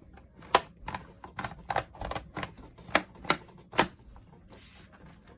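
Plastic snap clips of a Samsung Chromebook 4's case releasing as a spudger pries the case apart: about ten sharp clicks and snaps at uneven spacing.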